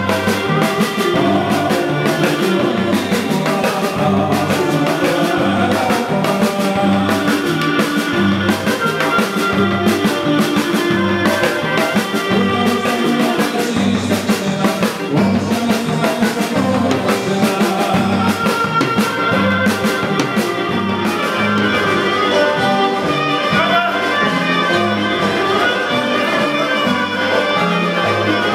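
Live Greek folk dance music in the style of Epirus, led by a clarinet over a steady beat.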